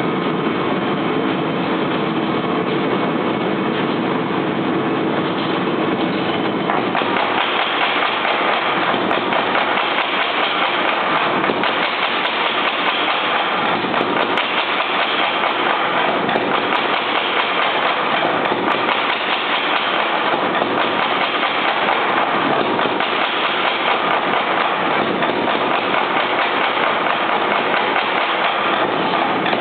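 Little Giant mechanical power hammer running, its ram striking hot steel in a fast, steady stream of blows as tapers are drawn out.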